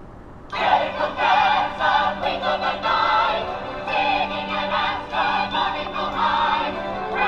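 Choral music starting suddenly about half a second in, many voices singing over a steady low held note.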